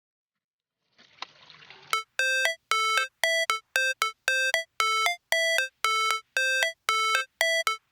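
Music: a synthesized beep pattern, a short chime-like note repeating evenly a little under twice a second with a small upward step at the end of each, opening a hip-hop track.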